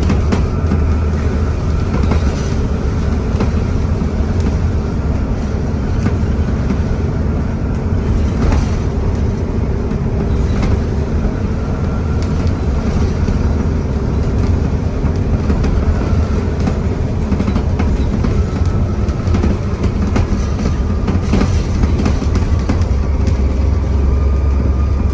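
Alexander Dennis Enviro400 double-decker bus under way: steady diesel engine drone with a high turbocharger whistle that comes and goes and drifts in pitch, over scattered knocks and rattles.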